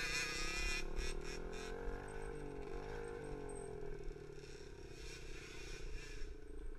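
Small 50cc four-stroke pee wee dirt bike engine running under a rider: the revs fall off over the first couple of seconds, rise and fall briefly in the middle, then hold lower and steadier, with a few knocks from the bike over rough ground about a second in.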